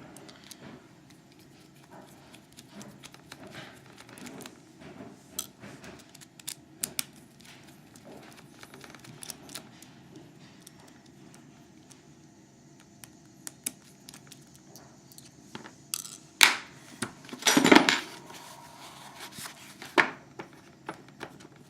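Lock picking on a CX5 high-security mortise cylinder: a steady run of light metallic clicks and scrapes from the pick and tension tool working the pins, with a few louder metal clacks near the end.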